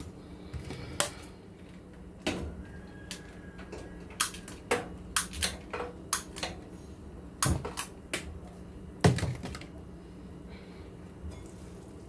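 Kitchen clatter: an irregular string of sharp clicks and knocks from utensils and dishes being handled, the loudest knock about nine seconds in, over a faint steady hum.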